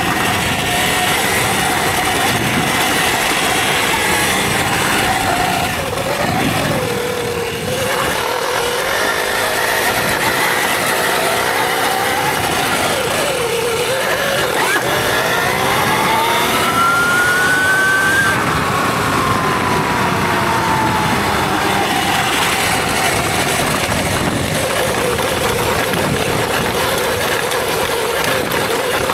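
Electric dirt bike's motor whining, its pitch rising and falling with the throttle, over a steady rush of wind and tyre noise. The whine climbs highest a little past halfway, then falls away slowly.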